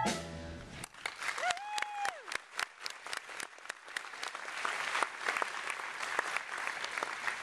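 Audience applauding as a song ends: the last sung note dies away in the first second, then clapping starts sparse and builds into steady applause, with one brief cheer from a single voice about a second and a half in.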